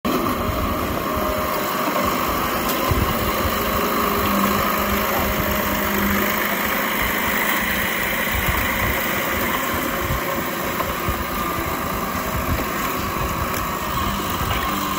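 Old Komatsu D31P bulldozer's diesel engine running steadily.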